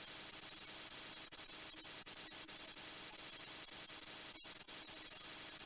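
Steady, unchanging hiss, strongest in the highs, with a faint low hum beneath it: background noise of the recording.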